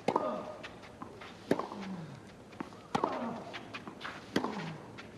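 Tennis ball struck by rackets four times in a baseline rally, about one hit every second and a half. Each hit is followed by a short grunt falling in pitch, with lighter footfalls on the clay court between strokes.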